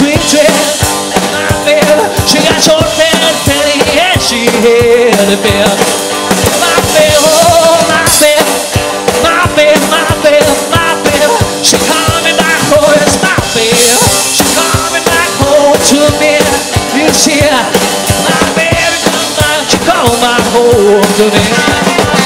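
Rock and roll trio playing live: an instrumental passage with electric guitar lead over upright double bass and a drum kit.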